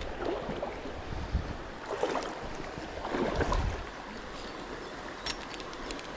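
Shallow river water rushing over a rocky bed, with wind buffeting the microphone in several low gusts during the first four seconds. A few faint clicks come about five seconds in.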